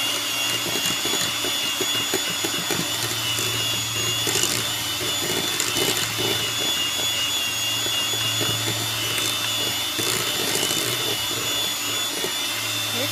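Electric hand mixer running steadily with a high motor whine, its beaters working cream cheese and sour cream in a glass bowl.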